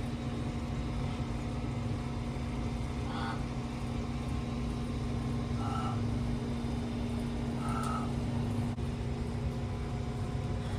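Steady low mechanical hum with one constant droning tone, like a running vehicle engine, and three faint short chirps spread through it.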